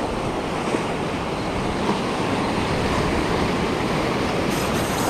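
Surf washing and breaking on the shore, with wind rumbling on the microphone, a loud steady rush. Near the end a faint high whine joins in.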